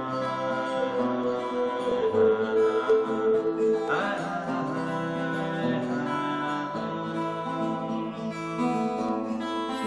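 Acoustic guitar strummed and picked in a slow instrumental passage between sung lines, with fresh chords about 4 s in and again near the end.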